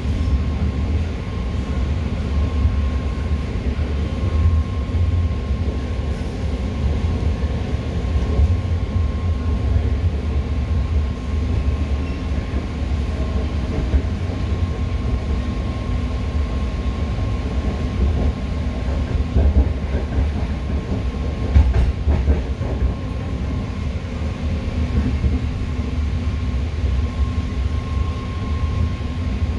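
Inside a moving BART train car of the newer Alstom/Bombardier build: a steady rumble of wheels on rail with a constant high whine, and a few short clacks about two-thirds of the way in.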